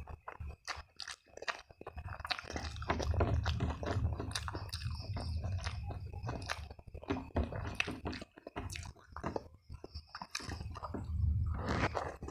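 Close-miked chewing and biting: moist mouth sounds with many small crunches and clicks, heavier in two stretches.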